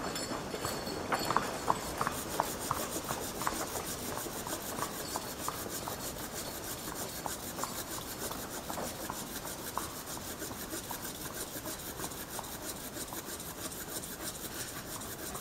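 Hand saw cutting through a fallen willow branch: a steady run of back-and-forth sawing strokes through the wood, with occasional sharper clicks.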